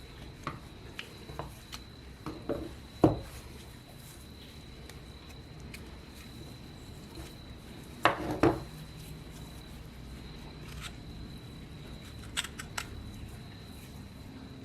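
Metal parts and hand tools handled on a workbench: scattered light clicks, a sharp knock about three seconds in and a short clatter about eight seconds in, over a faint steady high whine.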